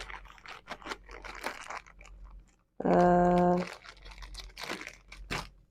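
Plastic packaging crinkling and rustling, with irregular small clicks and knocks as the parts are handled. About three seconds in, a short steady hum cuts in, louder than the handling.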